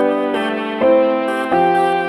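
Background music: sustained keyboard chords changing about every half second.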